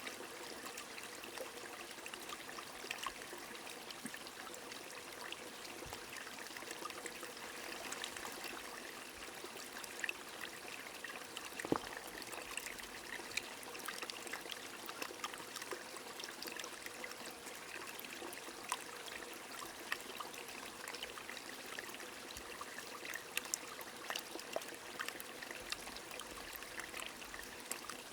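Steady rain falling beside a flowing stream: a continuous rush of water scattered with many small drop ticks, one sharper tick about twelve seconds in.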